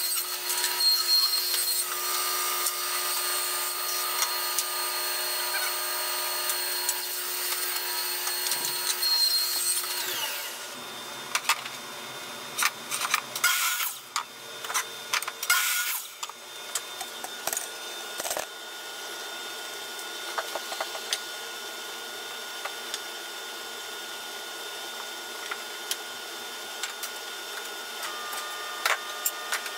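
Table saw running while select pine boards are ripped, a steady whine that winds down about ten seconds in. Then a few short bursts of a miter saw cutting, followed by lighter clicks and knocks of wood and tools.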